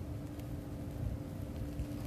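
Wind rumbling on the microphone over a steady low hum, with a faint tick about half a second in.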